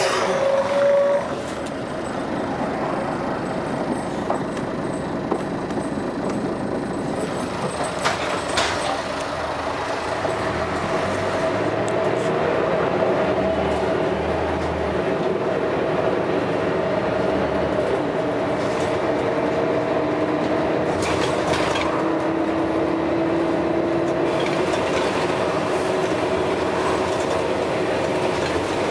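Scania L113CRL single-decker bus under way, its 11-litre six-cylinder diesel running steadily with engine thrash. The engine note climbs slowly later on, and a few sharp clicks and knocks come through.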